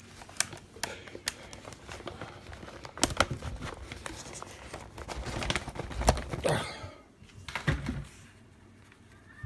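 Irregular clicks and taps with light rustling of hands handling a laptop that has frozen, with a couple of louder knocks about three and six seconds in.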